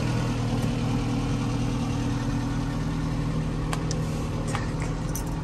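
1995 Subaru Sambar kei truck's 660 cc four-cylinder engine idling steadily, with a few light clicks near the end.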